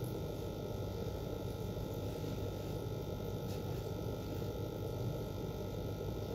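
Steady low hum and rumble with a faint hiss, unchanging throughout, with a faint tick about halfway through.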